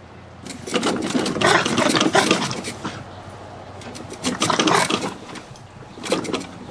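A terrier growling and snarling in rough bouts while biting at a lawnmower's front wheel: a long bout from about half a second in, another around four seconds, and a third starting near the end.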